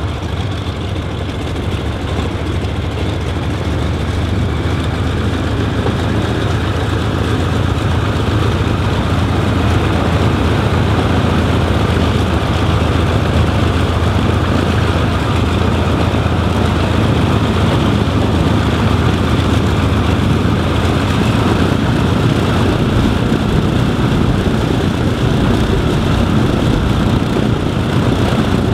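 Chance-Vought F4U-5N Corsair's Pratt & Whitney R-2800 radial engine and propeller running at taxi power, a steady low rumble that grows louder over roughly the first ten seconds as the aircraft taxis closer, then holds.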